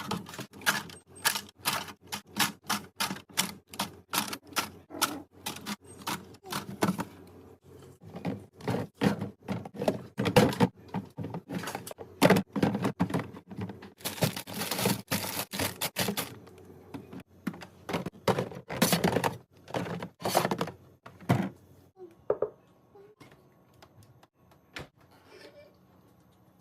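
Items and hard plastic containers being handled and set down during a fridge restock: a quick, irregular run of clacks and thunks. A couple of seconds of rustling come about halfway through, and the sounds thin out to a few faint taps near the end.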